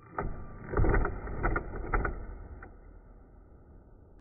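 Cordless impact driver driving a hinge screw, with a steady motor whine and a run of sharp, irregular hammer knocks in the first three seconds. The knocks are the impact mechanism striking as the screw meets resistance and tightens. After the knocks, only the whine goes on.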